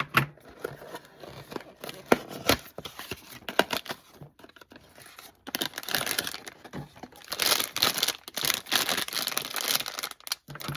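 Packaging of a Snoopy blind box being torn open and crinkled by hand: scattered tearing and clicking at first, then steady crinkling from about halfway through.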